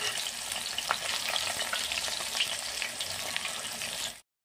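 Chicken keema kababs shallow-frying in hot oil in a pan: a steady sizzle and crackle, with a light click about a second in. The sound cuts off abruptly just before the end.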